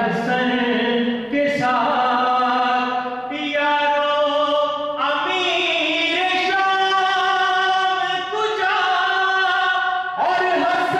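A man singing solo into a microphone in long, drawn-out held notes that change pitch every second or two, with short breaks between phrases.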